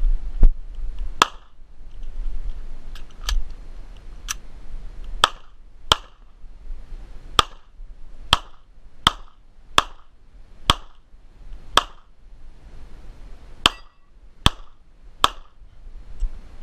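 Semi-automatic pistol fired in a shooting stage: about fifteen single sharp shots, mostly a second or less apart, with a longer pause between the second and third shots.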